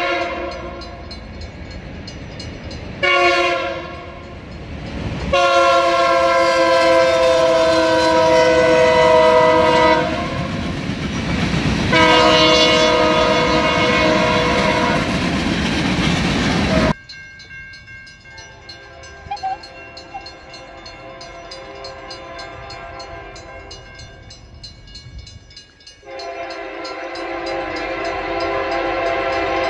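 Diesel freight locomotive air horn sounding a chord in a series of blasts, a short one and then two long ones, over rail noise. About halfway through the sound cuts off abruptly to a quieter passage of train noise, and a horn sounds again near the end.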